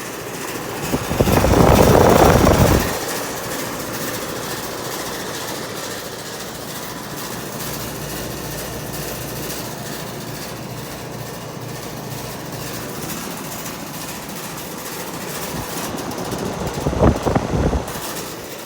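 2006 Ruud Achiever central air conditioner's outdoor condenser unit running with a constant, loud rattle, which the owner puts down to a loose bolt. The noise swells louder for a couple of seconds about a second in, and again briefly near the end.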